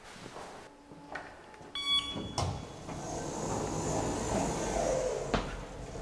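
Passenger elevator: a short electronic beep about two seconds in and a knock, then a steady whirr of the lift and its sliding doors that ends with a click.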